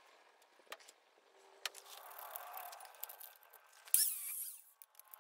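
Light clicks of steel square tubing being handled, then, about four seconds in, a short metallic scrape with squealing high overtones as the tubing is slid into and clamped in the chop saw's vise. The saw's motor is not running.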